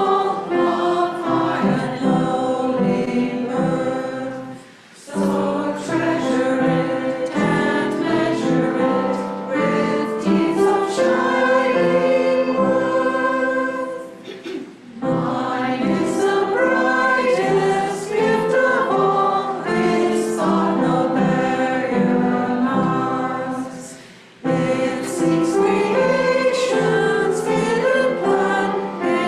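A congregation singing a simple song together in unison-style group voices, in long phrases with short breaks between them, with instrumental accompaniment.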